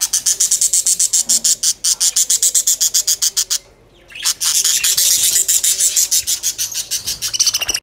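Small aviary parrots chattering: fast, shrill, evenly repeated chirps, about ten a second, in two long runs broken by a short pause a little past halfway.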